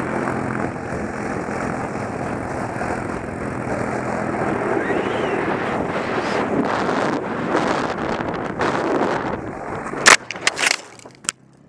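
ATV engine running as a rider is towed over snow at speed, with rushing snow and wind noise on the microphone. About ten seconds in, a few sharp, loud knocks as the towed rider falls hard and the camera hits the snow.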